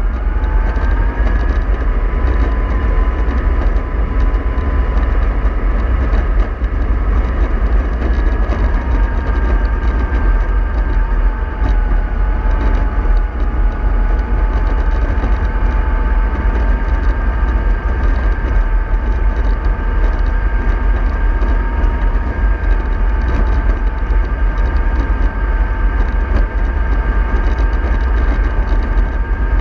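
Remote-control model bus in motion: a steady low rumble with a high whine that drifts slightly up and down in pitch.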